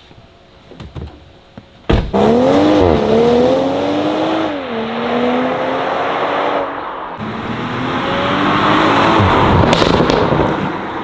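Toyota Supra with an aFe Takeda 3-inch exhaust accelerating hard from about two seconds in. The engine note climbs and drops back several times as it shifts up through the gears.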